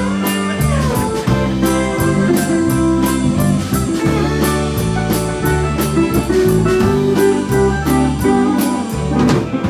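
Live band playing an instrumental break between verses: guitars over a bass line and a steady drum-kit beat.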